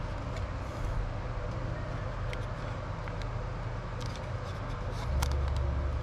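Faint clicks and taps of a plastic meter box and a stiff wire being handled, over a steady low hum that grows louder about five seconds in.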